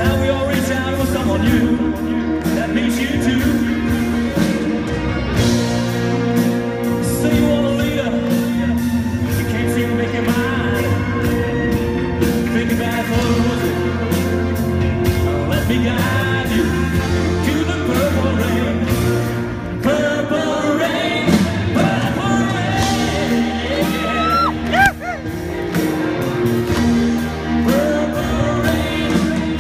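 Live rock band and symphony orchestra playing a slow rock ballad: sustained chords over a steady bass line, with wordless singing gliding above it in the second half.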